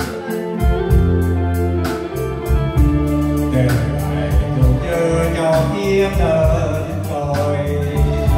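Live band playing an instrumental passage of a slow Vietnamese ballad between sung lines: drum kit keeping a steady beat under bass and a held melody on keyboard or guitar.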